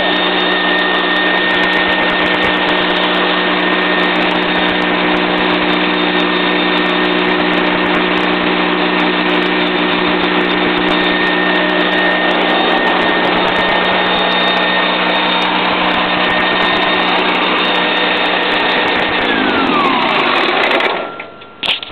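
Military-standard two-cylinder gasoline engine on a cable reeling machine running steadily at constant speed. Near the end it is shut off, and its pitch falls as it winds down to a stop.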